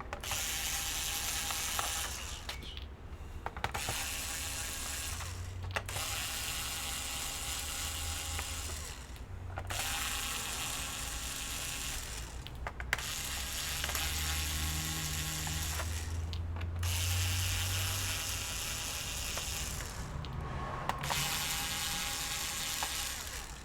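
Small electric screwdriver whirring in runs of a few seconds with short pauses between them, as the screws are driven out of a laptop's base.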